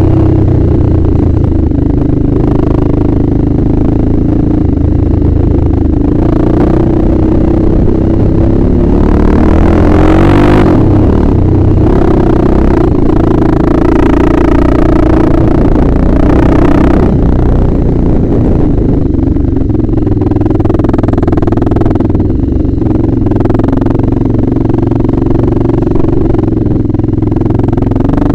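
Yamaha Raptor 660 quad's single-cylinder four-stroke engine running hard on a dirt trail, its revs rising and falling as the throttle is worked, with knocks and rattles from the rough ground.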